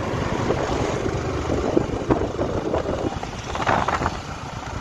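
Sport motorcycle engine running while riding along a road, with wind buffeting the handlebar-mounted microphone.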